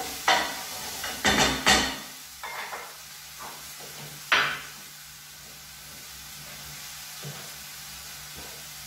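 Mushrooms and vegetables sizzling in a frying pan, with a wooden spoon scraping and knocking against the pan in the first two seconds. A single sharp knock follows about four seconds in, then steady sizzling.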